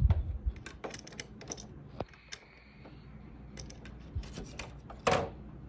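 Irregular small plastic clicks and knocks of a compact disc being handled and pushed into a slot of a Technics SL-MC7 CD changer's disc rack, with a low thump at the start and a louder knock near the end.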